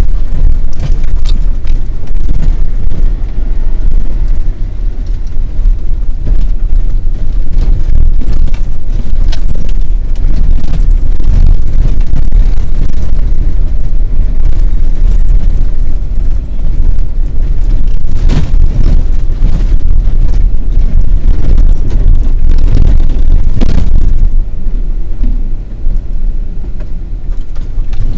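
Off-road vehicle driving over a rough dirt track: a loud, continuous low rumble of engine and tyres, broken by several sharp knocks and jolts from bumps in the track.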